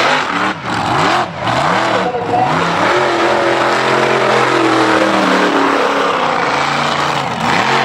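Mega mud truck's engine revving in quick blips up and down, then held at high revs for several seconds with a dip near the end, over a dense wash of spinning-tire and mud noise.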